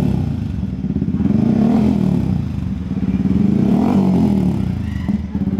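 Motorcycle engine running and being revved twice, the pitch climbing and falling back to a lower running speed after each blip of the throttle.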